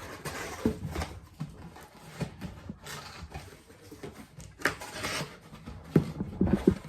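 Cardboard packing being handled and fitted into a shipping box: scattered knocks and scrapes, a brief rustle about five seconds in, and a quick run of knocks near the end.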